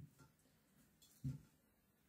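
Near silence with two soft low knocks from dishes handled on a table, one at the very start and a louder one a little past a second in.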